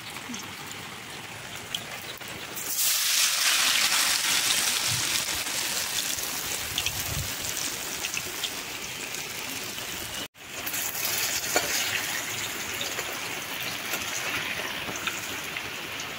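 Hot oil sizzling in a karahi as batter-coated stuffed kakrol (spiny gourd) deep-fries; the sizzle jumps louder about three seconds in as another battered piece goes into the oil, and cuts out for a moment about ten seconds in.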